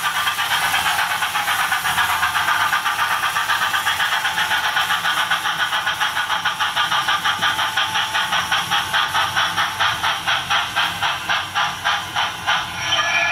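Model locomotive's sound decoder playing its running sound, a regular beat that slows steadily as the train brakes into the station, with the brake squeal setting in as a steady high tone near the end.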